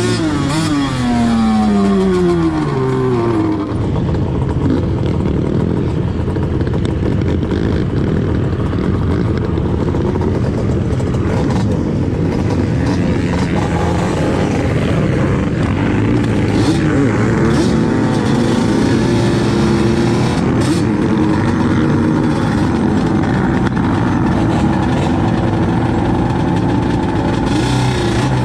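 Sport quad (ATV) engine under the rider: revs fall in steps over the first few seconds as the throttle comes off, then the engine runs at varying throttle and climbs again near the end. A heavy rush of wind noise on the microphone runs under it.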